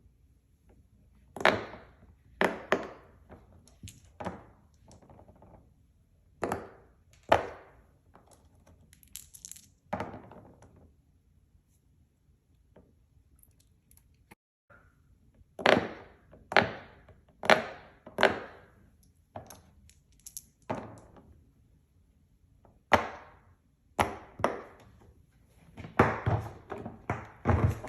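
Silicone Pop It fidget toy bubbles being pressed, one sharp pop at a time, irregularly spaced with short pauses, and a quicker run of pops near the end.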